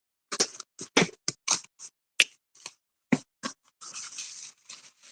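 A shipping package being opened by hand: a quick run of sharp clicks and crackles of cardboard and packing, then rustling of packing material near the end.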